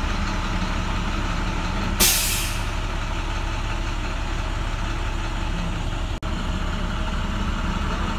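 Navistar MaxxForce DT inline-six diesel idling steadily while a forced DPF regeneration test is commanded. About two seconds in, a sudden loud hiss of air cuts in and fades within half a second.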